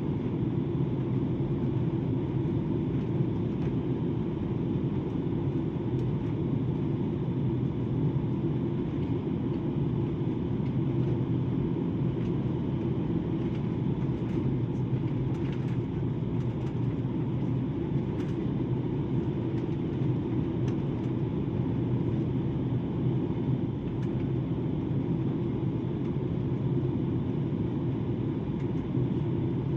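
Steady rumble of an airliner cabin in flight: engine and airflow noise holding an even level throughout.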